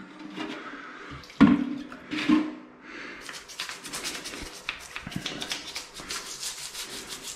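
Small stiff brush scrubbing moldy grout along a tiled shower floor, quick rapid strokes through the second half. A sudden thump about a second and a half in.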